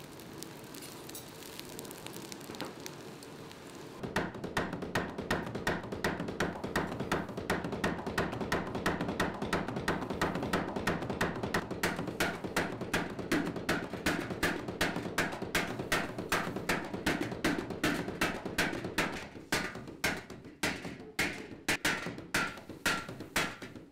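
Water-driven trip hammer of about 100 kg pounding hot iron on the anvil, a steady run of about three strikes a second starting about four seconds in. Near the end the strikes slow to about two a second and ring more. Before the hammering there is a steady hiss.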